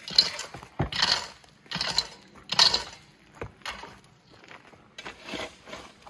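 A shovel scraping and digging into rocky gravel, with stones clattering into a wheelbarrow, several scoops in quick succession over the first three seconds, then fewer, quieter scrapes.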